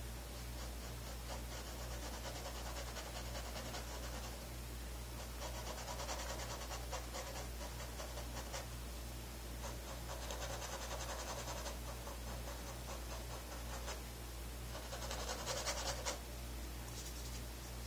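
Paintbrush scrubbing thin paint onto a stretched canvas in several bouts of a few seconds each, a soft dry scratching, while an underpainting is being blocked in.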